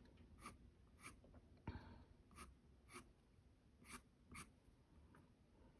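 Faint scratching of a white colored pencil stroked lightly across toned mixed-media paper. There are about ten short strokes, roughly two a second, with one firmer stroke a little under two seconds in.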